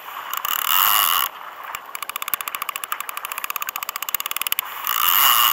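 Multiplier fishing reel's clicker ratcheting rapidly and evenly as a hooked fish pulls line off against the drag; the angler takes the fish for a shark. Bursts of rushing noise come about half a second in and near the end.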